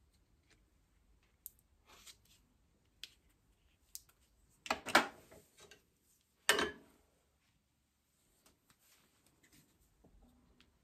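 Small handling sounds from brush-and-paper painting: scattered light ticks and taps, with two louder short scrapes near the middle.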